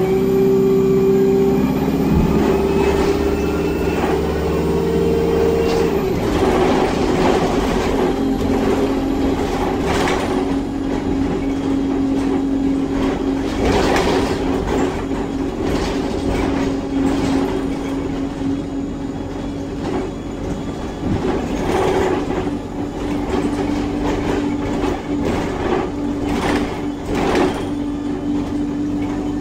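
ADL Enviro 200 bus heard from inside the saloon: the engine and Voith automatic gearbox whine rising in pitch as the bus accelerates, then a gear change about six seconds in. After that comes a steady drone as it runs on, with rattles and knocks from the bodywork over the road.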